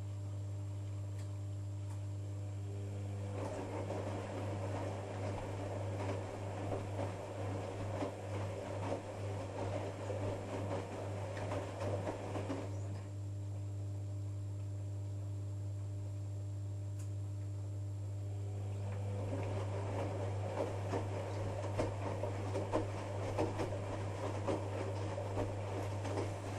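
Privileg Sensation 9415 washing machine in its wash phase: the drum turns for about nine seconds with laundry tumbling and the motor whirring, stops for about six seconds, then starts turning again. A steady low hum runs underneath.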